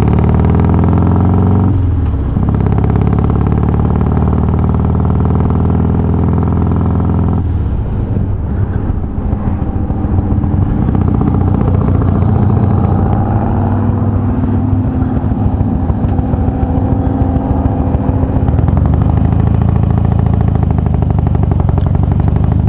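Harley-Davidson Twin Cam 88 V-twin, fitted with Feuling 525 cams, running under way on the motorcycle. The note holds steady, dips briefly about two seconds in, then turns rougher and more wavering from about seven seconds on.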